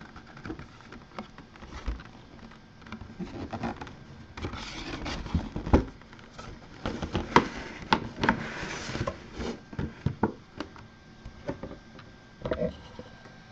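A cardboard mini-helmet box being opened and a mini football helmet in its clear plastic display case lifted out of packing paper and set down: cardboard and paper rustling and scraping, with irregular light taps and knocks of the plastic case.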